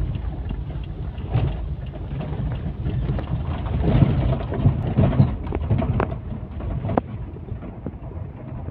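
Ambulance driving over a rough dirt track, heard from inside the cab: a steady low rumble of engine and tyres with sharp knocks and rattles as the body jolts, loudest about four to five seconds in.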